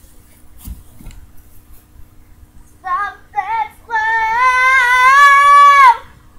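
A girl singing: two short notes about three seconds in, then one long, high held note with a wavering pitch that cuts off sharply about two seconds later.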